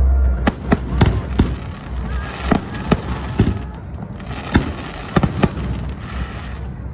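Aerial fireworks shells bursting, about a dozen sharp bangs at irregular intervals of a fraction of a second to a second over a steady rumble.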